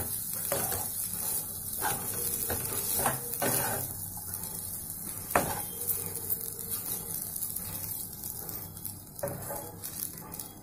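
Fried Maggi noodles sizzling in a nonstick frying pan as a spatula stirs and scrapes through them, with irregular taps of the spatula on the pan and one sharper click about five seconds in.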